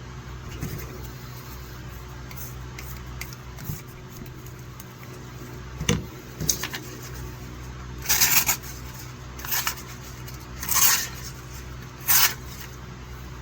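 Pocket-knife blade being sharpened or stropped: about half a dozen short scraping strokes, each a brief hiss, coming at irregular intervals from about six seconds in, over a steady low hum.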